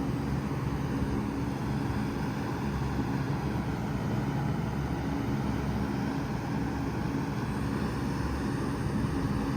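Five-ton Bard wall-mounted heat pump running steadily in cooling mode: a low compressor hum under the even rush of the condenser fan.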